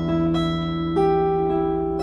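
Acoustic guitar being played: plucked notes ringing over a held low note, with new notes picked about a third of a second and a second in.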